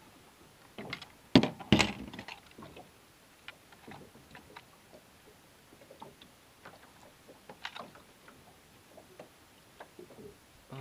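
Handling knocks and clicks in a small boat as a caught pike is held and hooked onto a digital hand scale: two loud knocks about a second and a half in, then faint scattered clicks.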